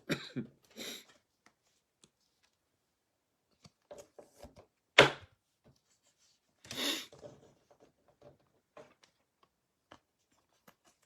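Trading cards and packs being handled on a table: scattered soft taps and shuffles, a sharp knock about five seconds in, and a short rustle shortly after.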